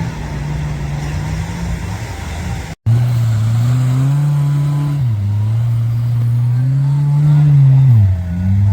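Off-road 4x4 vehicle engine running under load, its pitch rising and falling as it is revved and eased off several times. The sound cuts out briefly, about three seconds in.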